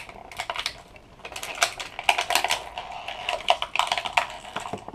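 Small plastic toy figures clicking and tapping quickly and irregularly against a plastic doll and playset, as a pet figure is tapped on the doll to act out a massage.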